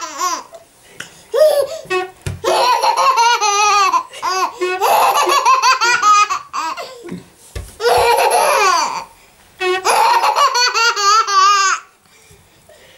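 A baby laughing hard in repeated belly-laugh fits, each a second or more long, broken by short catches of breath. Two brief dull thuds sound in the pauses, about two seconds in and again near eight seconds.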